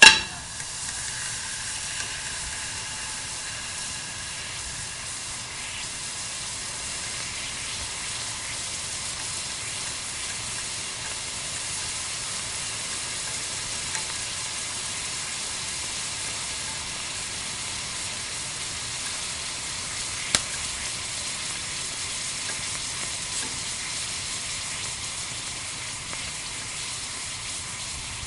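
Melting ice giving off a continuous fine crackling and fizzing, with a sharp crack at the very start and a few louder pops scattered through it.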